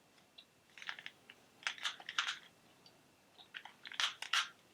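Skittles candies being chewed close to the microphone: small wet mouth clicks in three short runs, about a second in, around two seconds, and near the end.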